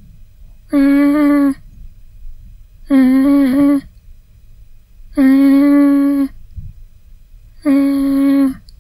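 A person's voice humming four short 'mm' notes, each held on the same steady pitch for about a second, about two seconds apart; the third wavers briefly in pitch.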